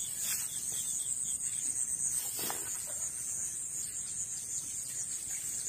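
Steady, high-pitched drone of insects, with a few faint clicks over it.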